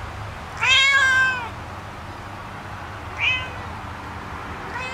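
A domestic cat meowing three times: a long, loud meow rising and falling in pitch about half a second in, a short meow around three seconds, and another starting near the end.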